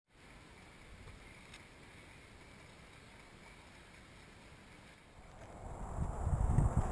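Faint hiss, then about five seconds in a low rumble swells up loud: a cruiser motorcycle's engine running, picked up by a camera mounted on the bike.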